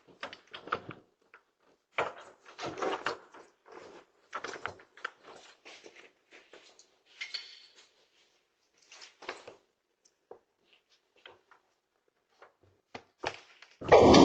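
Scattered knocks, clicks and rustling, irregular and short, with a much louder rush of noise starting near the end.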